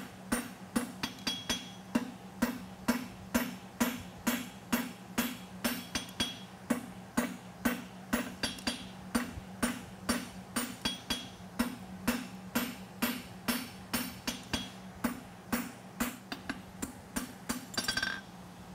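A steel hammer striking a red-hot tong jaw on an anvil in a steady rhythm of about two to three blows a second, each with a short ring. This is drawing out the tip of the Pritchell side of a pair of farrier's hot-fitting tongs.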